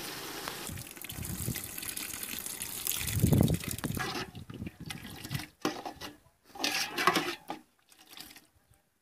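Water pouring or running steadily, then splashing in short separate bursts that thin out near the end.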